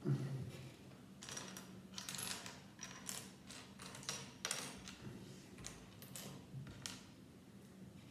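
Small plastic LEGO pieces clicking and rattling as they are handled and pressed together: a scattered series of light, sharp clicks.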